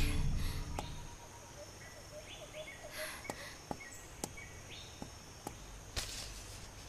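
Outdoor ambience of birds giving short high chirps over a faint steady insect hiss. It is broken by a few sharp light clicks and a brief rustle about six seconds in. Music fades out in the first second.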